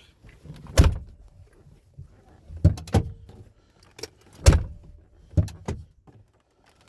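Ford F-150 door latch and handle clunking about six times in separate knocks, the loudest about four and a half seconds in, as the newly installed interior door handle is pulled and the door is worked.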